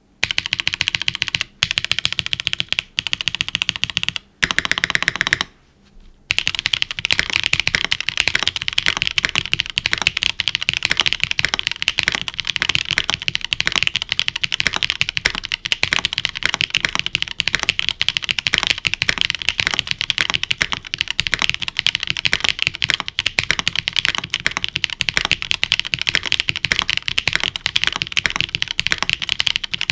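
Typing on a Neo75 CU mechanical keyboard fitted with scratchy Cherry MX Black × Kailh stem frankenswitches, an aluminium plate, gasket mount, no foam and GMK keycaps. Keystrokes come in short bursts with brief pauses at first, then in fast, continuous typing from about six seconds in.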